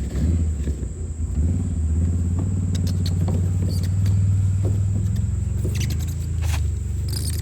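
A motor running steadily, a low rumble that gets stronger about a second and a half in, with a few light clicks and knocks over it.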